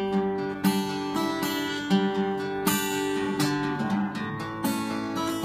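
Acoustic guitar strummed, chords ringing on between sharp strokes.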